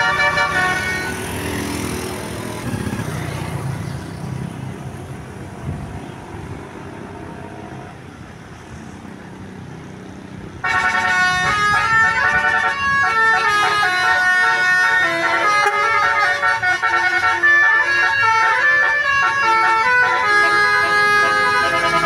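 Bus 'telolet basuri' multi-trumpet air horn. A held chord fades in the first second, leaving vehicle noise that slowly dies down. About ten seconds in, the horn cuts in loudly, playing a quick melody of stepping notes.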